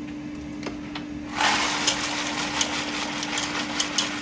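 Dry elbow macaroni pouring out of a cardboard box into a pot of boiling water: a dense rattling rush with many scattered clicks, starting about a second and a half in.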